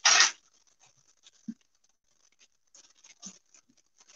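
Handling noises at a cooking griddle: a short noisy rush right at the start, then faint, scattered light clicks and taps.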